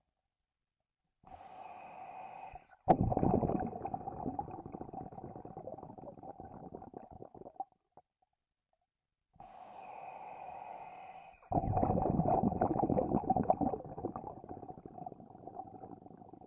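Scuba diver breathing through a regulator underwater, twice: each time a short hissing inhale with a steady tone, then a loud bubbling exhale that starts suddenly and fades away over several seconds.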